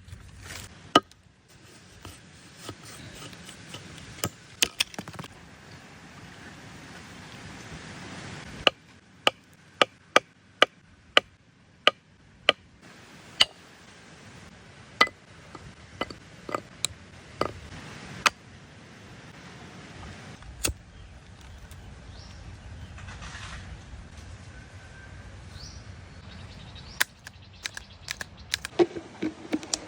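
A series of sharp knocks and clicks, scattered, with a run of fairly regular ones at about two a second in the middle, over a faint steady hiss.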